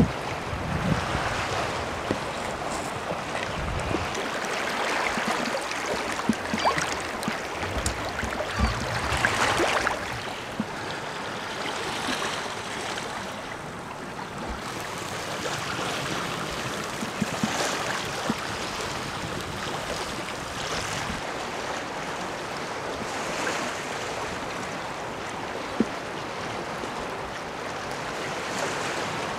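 Wind gusting over a rocky sea shore, with waves washing against the rocks and wind buffeting the microphone, strongest in the first ten seconds.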